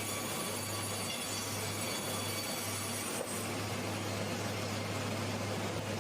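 Wood-processing machinery running steadily, a constant low hum under an even wash of mechanical noise.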